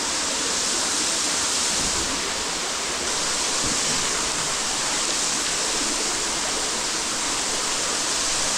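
Waterfall inside a cave, a steady rush of falling water.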